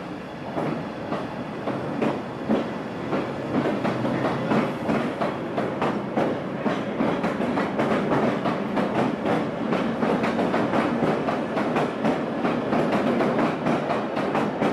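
London Underground 1983 Tube Stock train running, its wheels clicking rapidly over rail joints above a steady rumble, growing a little louder in the first couple of seconds.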